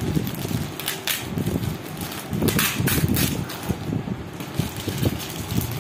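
Clear plastic poly bag crinkling as hands open it, in a few short rustles about a second in and again around two and a half to three seconds in, over a steady low rumble.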